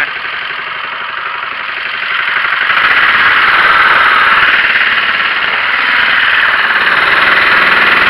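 Harbor Freight Predator 6.5 hp single-cylinder engine on a longtail mud motor, running loud under throttle as it drives the boat. It grows louder about two seconds in.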